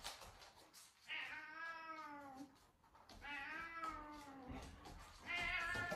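A house cat giving three long, drawn-out yowls, each lasting over a second with a short pause between, the last still going at the end.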